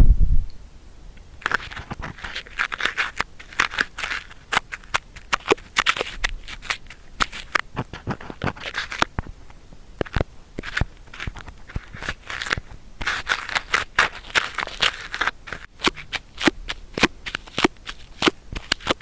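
Sticky cotton swab scratching and rubbing inside an ear-shaped microphone: crackly, scratchy strokes in uneven patches, dotted with many sharp clicks.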